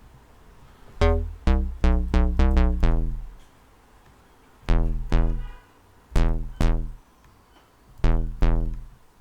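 UK bass pluck patch on the Xfer Serum software synth, square-wave oscillators with a sub an octave down and an envelope sweeping the low-pass filter, played as a quick run of notes and then a few pairs of notes with pauses between. Each note starts bright and dulls fast as the filter closes, leaving a deep bass tail.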